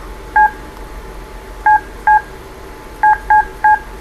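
Touch-tone (DTMF) dialing beeps from a flip phone as a number is keyed in: six short two-pitch beeps at an uneven typing pace, one about half a second in, then pairs and a quick run of three near the end.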